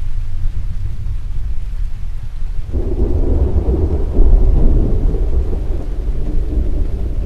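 Thunder rumbling low, then a heavier peal breaking in suddenly about a third of the way through. The peal is loudest near the middle and slowly rolls away. Rain hisses faintly underneath.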